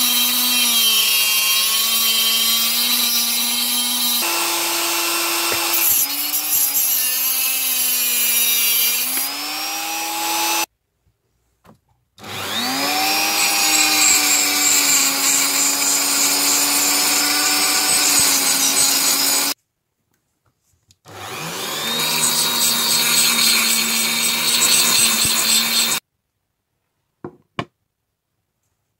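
Handheld rotary tool with a thin cut-off disc cutting a rusty steel strip, its motor whine dipping in pitch as the disc bites. It runs in three stretches, stopping about eleven seconds in and again near twenty seconds, each restart rising in pitch as the motor spins up; it stops for good about 26 seconds in, followed by a couple of light taps.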